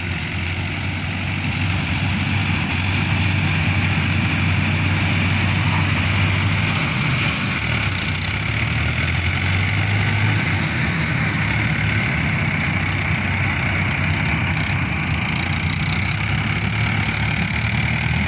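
Tractor diesel engine running steadily under load as it pulls a loaded trailer through a muddy paddy field, with a steady high whine over the low engine hum. It grows a little louder over the first few seconds.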